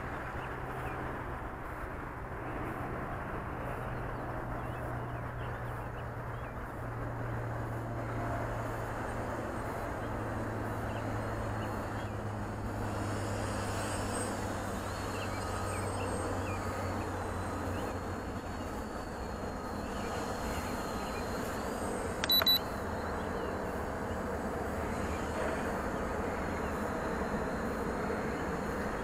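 JJRC X1 quadcopter's motors whining at a distance, the pitch wavering up and down as it flies, over steady outdoor background noise. One short, sharp click sounds about three-quarters of the way in.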